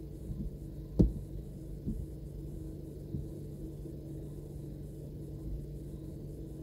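A steady low hum heard inside a car cabin, with a sharp thump about a second in and two softer knocks after it.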